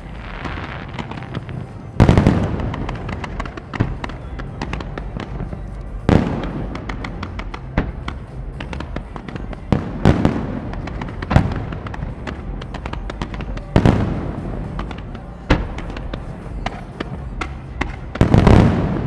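Fireworks display: aerial shells bursting in a continuous barrage. Big booms come about every four seconds, with dense popping and crackling between them.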